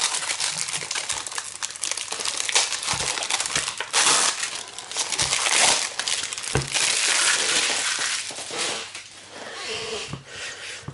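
Packaging crinkling and rustling as it is handled during an unboxing, with a few knocks.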